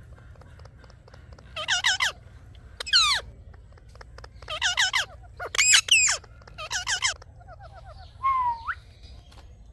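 Indian ringneck parakeet giving loud, harsh, squawking calls in about six short bursts, with one falling call about three seconds in and a quicker stuttering call followed by a rising note near the end.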